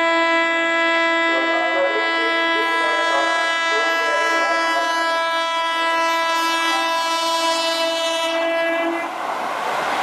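Indian Railways WAP-4E electric locomotive's horn sounding one long, steady blast of about nine seconds as the express approaches at speed, then cutting off. The rushing rattle of the train passing at speed takes over near the end.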